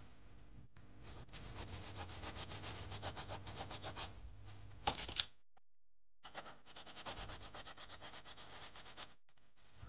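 A small brass part held in a clamp is being sanded by hand with an abrasive block, in quick back-and-forth rasping strokes about five a second. There are two runs of strokes with a short break just past halfway, and two sharp knocks just before the break.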